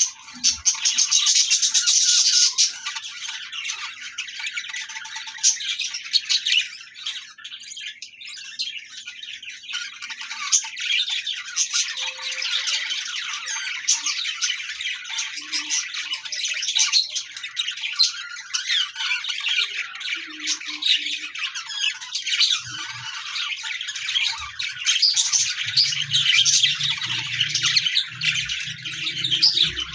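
A group of budgerigars chattering continuously, a dense mix of warbles, chirps and squawks, with a louder burst of chirping in the first couple of seconds.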